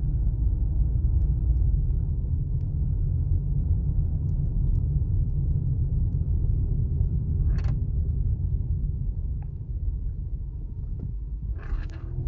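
Suzuki Swift Sport's 1.4 BoosterJet turbo four-cylinder running, heard as a steady deep rumble that eases a little in the last couple of seconds.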